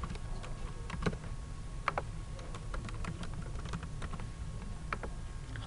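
Computer keyboard typing: scattered, irregular keystrokes over a low steady hum.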